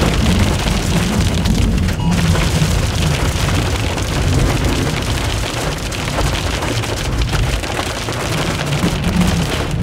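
Heavy rain hitting a vehicle's roof and windshield, heard from inside, with a steady low rumble underneath.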